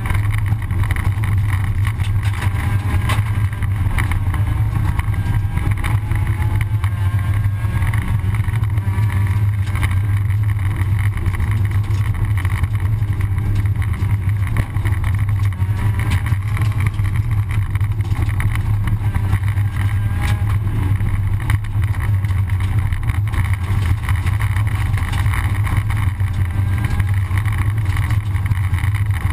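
Rally car driven fast on a gravel road, heard from inside the cabin: a steady low engine drone with tyre and gravel noise.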